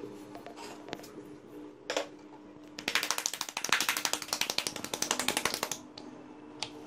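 Thick atta dough slapped rapidly back and forth between the palms: a fast run of slaps lasting about three seconds, starting a little before halfway. Before it come a few light knocks of a wooden rolling pin on a wooden board.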